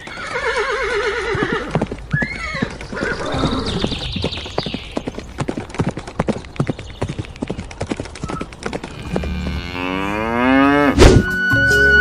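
Farm-animal sound effects: a wavering animal call at the start, a run of hoof clip-clops through the middle, and a cow mooing near the end, over light music.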